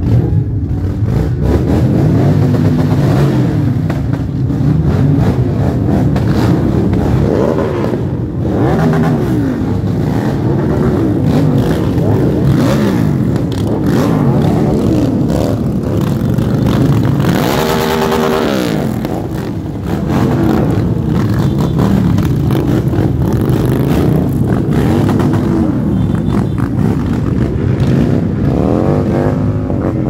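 Motorcycle engines revving hard and repeatedly during burnouts, the engine note rising and falling again and again. The sound is loud and continuous, with a brief harsher, noisier stretch a little past the middle.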